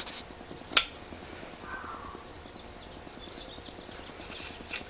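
Quiet outdoor ambience with one sharp click about a second in. Later a bird chirps faintly in a short run of high notes stepping downward.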